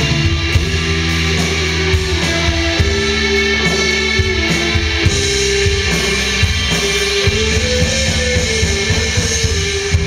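Live rock band: an electric guitar plays a melodic lead line of held notes that step up and down, over a drum kit with steady cymbals.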